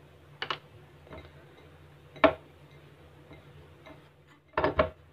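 Hand mixing crumbly biscuit-powder dough in a glass bowl, with irregular sharp clicks and knocks against the glass. The loudest comes about two seconds in, and a quick pair near the end.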